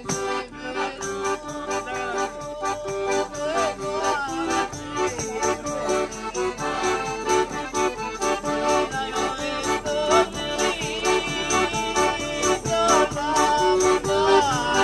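Traditional folk music: a piano accordion playing held, steady chords and melody, a frame drum beating a regular rhythm, and a man's voice singing over them.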